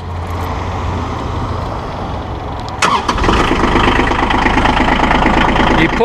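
Massey Ferguson compact tractor's diesel engine being started: the starter cranks, the engine catches about three seconds in with a sudden jump in loudness, then settles into a steady, even idle.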